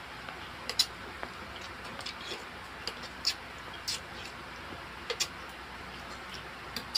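Metal spoon clicking against a ceramic soup bowl during eating: a handful of light, sharp clinks at irregular intervals over a steady background hiss.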